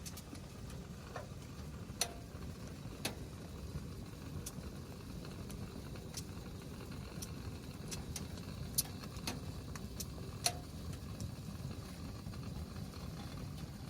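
Wood stove fire burning with a steady low rush and scattered sharp crackles and pops, the loudest about 2, 3, 9 and 10 seconds in.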